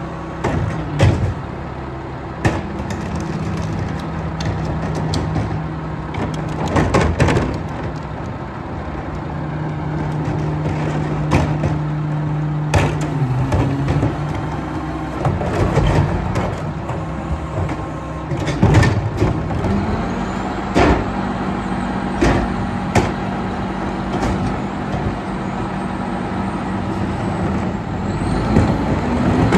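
Rear-loader garbage truck's diesel engine running at the curb, its pitch stepping down about 13 seconds in and back up around 20 seconds. Repeated sharp clanks and bangs of plastic recycling carts being tipped against the hopper and set down.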